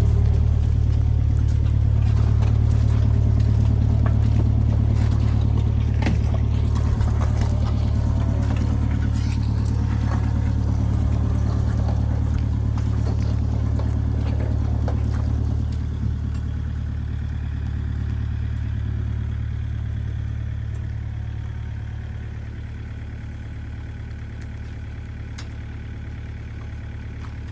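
A heavy engine running steadily, with some clatter and a few knocks. It grows fainter over the last ten seconds or so.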